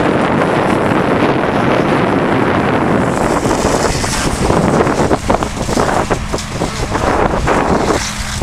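Outdoor wind buffeting the microphone as a steady, rumbling roar. From about three seconds in, a high hiss joins it, the sound of a fire hose spraying water onto a smouldering burned trailer.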